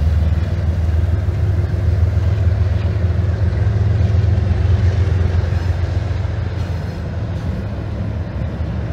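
CSX diesel freight locomotives running across a steel railroad viaduct: a loud, steady low rumble of the engines.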